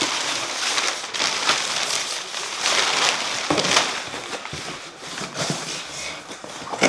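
Crumpled packing paper rustling and crinkling as it is pulled out of a cardboard shipping box, then cardboard sliding and knocking as the inner box is lifted out, with a sharper knock near the end.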